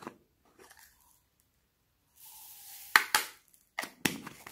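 Small foam beads poured out of a small glass bowl into a glass dish, a soft rushing hiss, followed by several sharp clicks as a plastic container knocks against the glass bowl.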